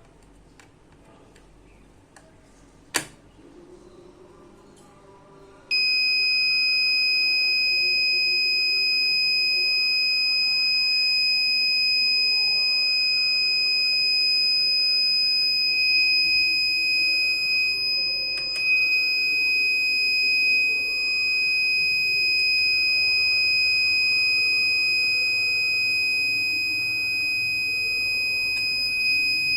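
Alarm buzzer of an ATmega32 measuring-alarm circuit switching on suddenly about six seconds in and sounding one continuous, steady, high-pitched tone. A single sharp click comes shortly before it.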